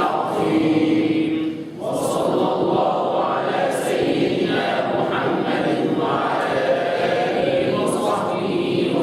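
A group of men chanting an Arabic Sufi litany in unison, without instruments. The voices break briefly for a breath about two seconds in.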